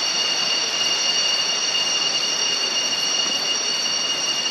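Cicadas droning steadily in several unbroken high-pitched tones over an even rushing hiss.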